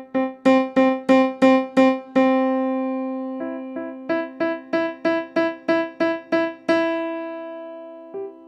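Korg Krome digital piano on its grand piano sound: one note of a chord struck about three times a second, growing from soft to loud, then held and left to ring about two seconds in. The next chord note up is repeated the same way, soft to loud, and held near seven seconds. A third, higher note starts repeating near the end. This is a finger exercise in controlling each note's volume.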